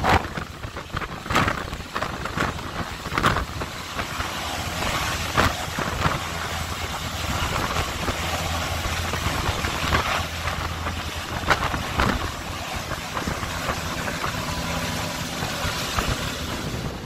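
Sikorsky S-92 helicopter hovering overhead during a winch lift: steady rotor and turbine noise, with gusts of rotor downwash buffeting the microphone.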